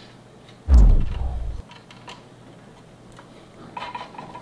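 Hand ratchet clicking as the brake-line banjo bolt on a motorcycle's rear brake caliper is tightened to crush its crush washers. About a second in there is a loud, low boom that falls in pitch.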